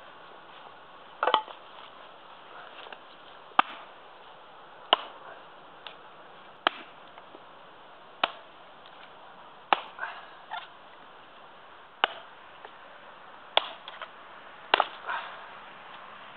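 A Prandi Yankee small axe with a 600 g head splitting kindling sticks on a wooden chopping block: about ten sharp chops, roughly one every second and a half.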